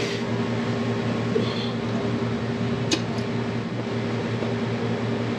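Steady electrical hum of running refrigeration machinery. Two light metallic clicks come about three seconds in as copper tubing is handled among the unit's lines.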